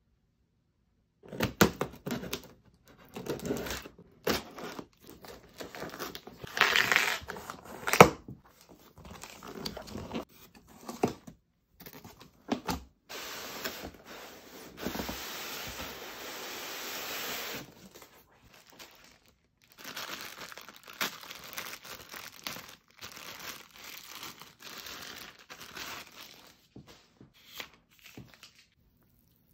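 Cardboard monitor box and plastic-bagged packing being handled: irregular rustling, crinkling and scraping with a few knocks, the loudest a sharp knock about eight seconds in. Midway comes a steady sliding hiss lasting about three seconds as the cardboard box is slid off its foam insert.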